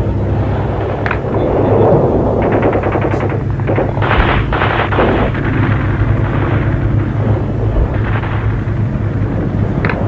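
Battle gunfire: a rapid machine-gun burst about two and a half seconds in and heavier blasts a second or so later, over a steady low rumble.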